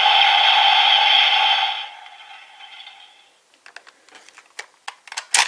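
Electronic sound effect from the speaker of a DX Gashacon Key Slasher toy, a loud, noisy blast that fades out about two seconds in. Then scattered plastic clicks and rattles as the toy is handled, with a sharp click near the end.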